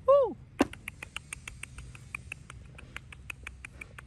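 A short falling cry, then a rapid, even clicking at about six clicks a second.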